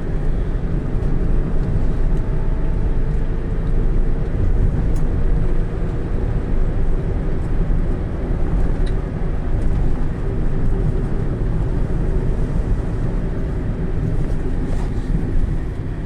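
Steady rumble of a moving vehicle: engine and road noise, with a faint steady whine in the first few seconds.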